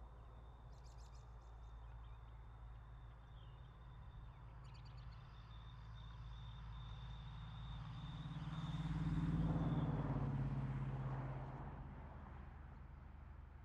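A motor vehicle passing by, growing louder to a peak about nine seconds in and then fading away, with a bird chirping twice in the first half.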